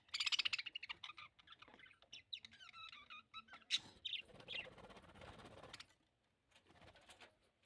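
Budgerigars chirping and chattering: a fast rattling trill about a second long at the start, then short gliding chirps, with a scratchy noisy stretch partway through.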